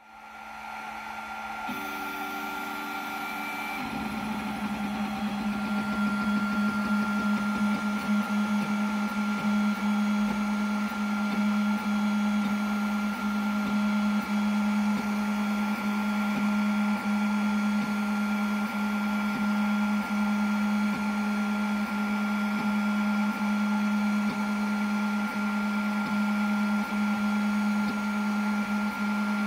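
Snapmaker 2.0 A150 laser engraver cutting a wooden sheet: a steady machine hum with a thin higher tone above it, setting in about four seconds in. Small regular dips come about once a second.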